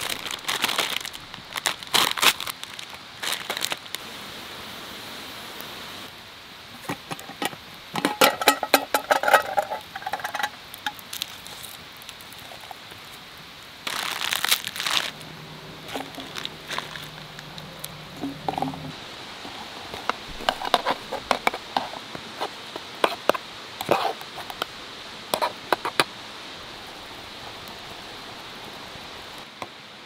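Crinkling and tearing of a plastic instant-ramen packet, with a louder burst of tearing about halfway through, among scattered clicks and knocks of metal cooking gear and the crackle of a wood campfire.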